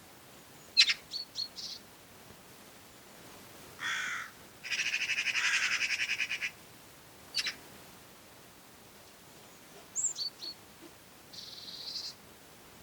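Wild birds calling: a few sharp short notes, then a harsh, rapid chattering run of about eight notes a second lasting nearly two seconds, with short scattered calls and a buzzy call near the end.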